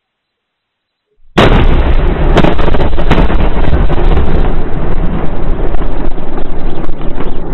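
A huge explosion after a missile strike breaks in suddenly about a second in, so loud the recording is pushed to its limit. It is followed by a continuous deep rumble with a few sharp cracks in it.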